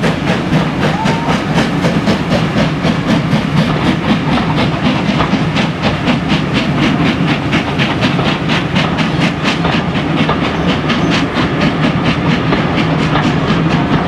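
Train double-headed by two 0-6-0 steam locomotives running, with rapid, even beats and the clatter of the train on the rails.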